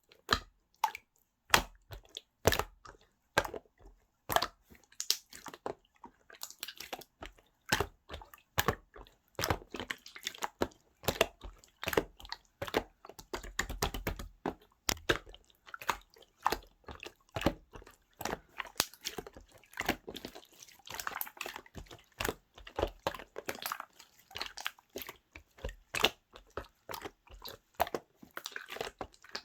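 Clear slime being squeezed and poked by hand, giving an irregular run of sharp clicky pops and wet squelches, a few a second.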